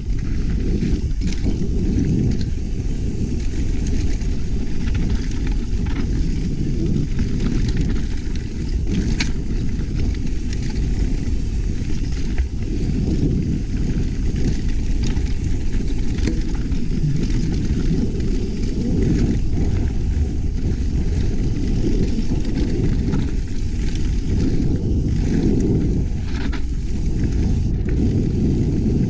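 Mountain bike rattling down a rough dirt trail, heard through a GoPro's microphone as a steady low rumble of wind and trail noise with scattered clicks and knocks.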